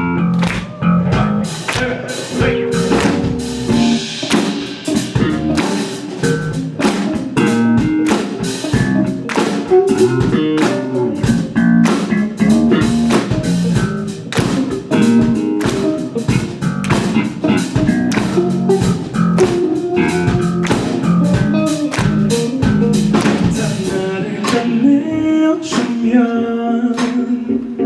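A live band plays the instrumental intro of a song, with guitar over a steady drum-kit beat.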